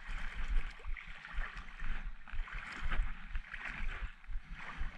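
Shallow rock-pool water sloshing and splashing in uneven surges, as from someone wading through it.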